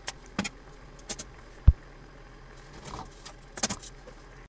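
A metal spoon clinking against a stainless-steel tray as cooked chicken pieces are lifted out of the paella pan: several sharp clinks, and one dull thump, the loudest sound, a little over a third of the way in.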